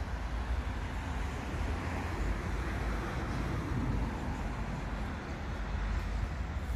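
Steady hum of distant city road traffic with a constant low rumble.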